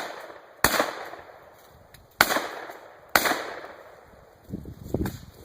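Three shotgun shots from a Winchester 1300 pump-action shotgun, about one to one and a half seconds apart, each sharp crack trailing off. Low, irregular rumbling follows near the end.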